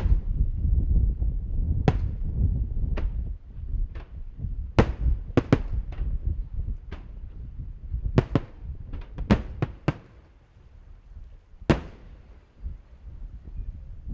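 Firework shells bursting overhead in a rapid, uneven string of sharp bangs, some in quick pairs, over a low wind rumble on the microphone.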